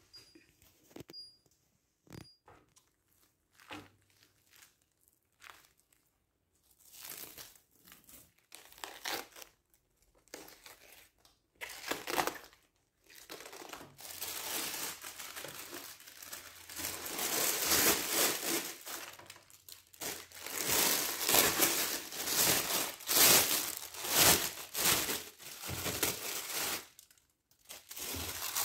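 Thin plastic bags crinkling and rustling as cut cabbage wedges are packed into them. A few scattered handling noises come first, then dense crinkling through the second half.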